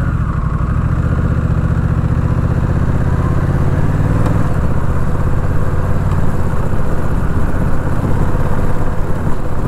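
Honda Rebel 1100's parallel-twin engine pulling away from a standstill and accelerating, heard from the rider's position. The engine note changes about four seconds in, and wind noise grows as speed builds.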